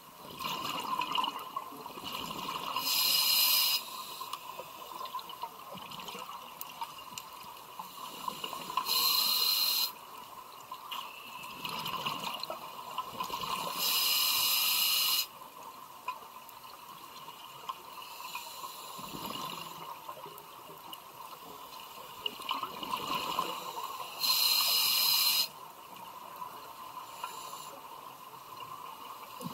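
Scuba diver breathing through a Scubapro regulator underwater: a soft hiss on each inhalation, then a loud burst of exhaled bubbles from the regulator's exhaust, each burst about a second long. Four breaths, spaced unevenly.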